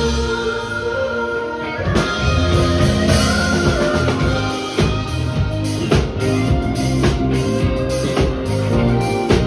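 Live band playing a rock song: sustained guitar chords, with the drum kit coming in on a full beat about two seconds in.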